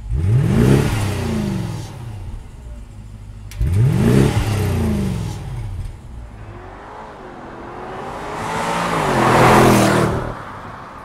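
BMW 750i twin-turbo V8 through a Dinan free-flow exhaust, heard at the tailpipe: two quick free revs at standstill, about three and a half seconds apart, each sweeping up and back down. Then the car passes under acceleration, its engine note climbing and growing louder to a peak a second or so before the end, then falling away.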